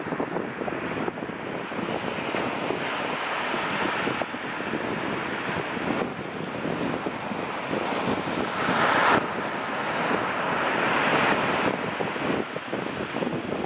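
Surf washing on the beach with wind on the microphone, over the quick scratching of a dog's front paws digging in sand. The surf and wind swell loudest about nine seconds in, then drop off suddenly.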